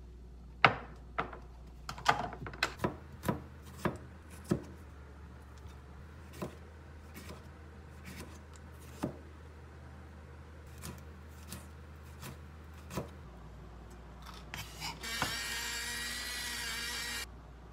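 A chef's knife chopping vegetables on a plastic cutting board: a quick run of sharp taps, then slower single cuts. About fifteen seconds in, a spice grinder grinds steadily for about two seconds.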